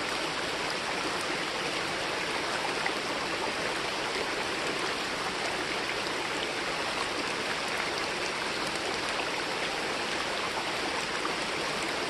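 Steady, even rush of running creek water and pouring rain, with faint scattered ticks of drops.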